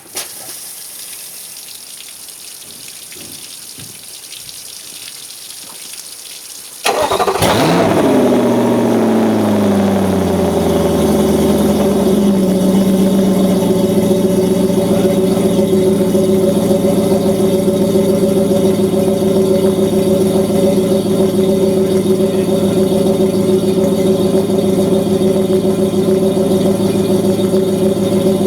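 Garden-hose water hissing through the flush attachment, then about seven seconds in the Yamaha F350 5.3-litre V8 outboard starts suddenly on the hose. It comes in at high revs, drops over the next few seconds and settles to a steady idle.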